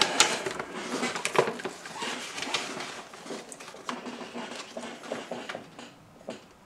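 Paper rustling and crackling as an instruction sheet is unfolded and handled, loudest in the first couple of seconds and fading out toward the end.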